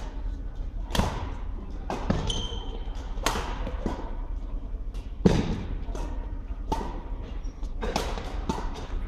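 Badminton rackets striking a shuttlecock during a doubles rally: sharp cracks roughly once a second, echoing in a large sports hall, the loudest about five seconds in. A brief shoe squeak on the hall floor between two and three seconds in.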